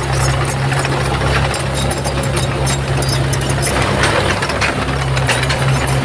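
Komatsu crawler bulldozer's diesel engine running steadily, with many small clicks and rattles over the low hum.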